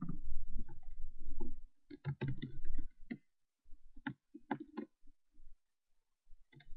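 Computer mouse clicking irregularly, several sharp clicks in small groups, over a low rumbling noise in the first few seconds.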